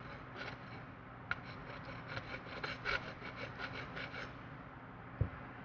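Hand file scraping lightly across a padlock body in a run of short, quick strokes, several a second, that stop a little after the middle. A single low thump near the end.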